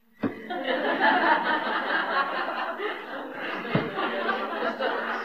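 An audience of many people laughing together, starting abruptly after a moment of silence and going on at a steady level.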